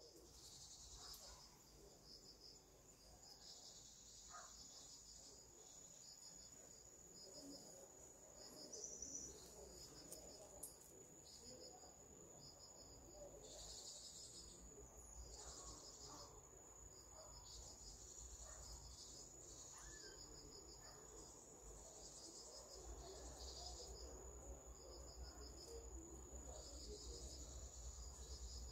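Crickets chirping faintly: a steady high trill with short pulsed chirps repeating about once a second.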